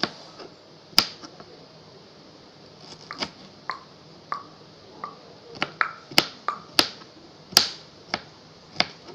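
Kitchen knife striking a white cutting board while dicing pineapple into small pieces: about a dozen sharp, irregular knocks, with a pause of a couple of seconds near the start.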